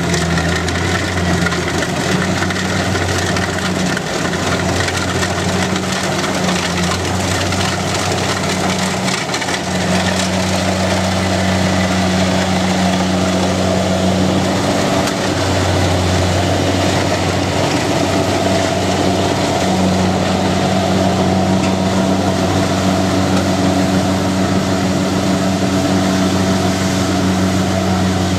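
Large diesel engine running steadily with a deep, even hum, its pitch shifting slightly a few times.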